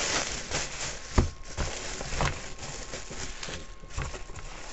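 Plastic bubble wrap being unfolded and handled, a crinkling rustle with scattered crackles and one sharp click about a second in.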